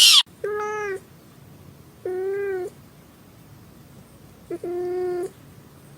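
A brief loud noise right at the start, then a cat meowing three times, each meow a flat, even-pitched call about half a second long, a couple of seconds apart.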